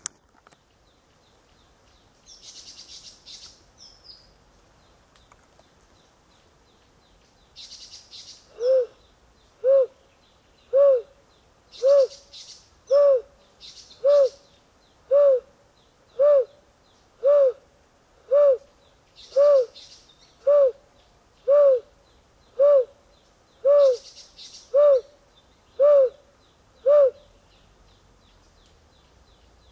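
Male Narina trogon calling: a long series of about eighteen low, soft hoots, roughly one per second, the first ones a little quieter, answering a rival male's call. Short high buzzy bursts sound faintly in between.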